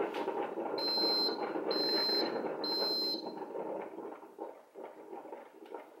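Mr. Coffee Optimal Brew thermal coffee maker finishing its brew cycle. Three high beeps, each about half a second long, come about a second apart and signal that the cycle is done. Under them the machine's steady rushing brewing noise fades away with scattered crackles over the last couple of seconds.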